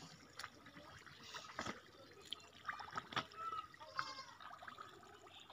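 Shallow muddy water splashing and trickling faintly, with a few short sharp splashes, as fish break the surface and a man wades and reaches into the water.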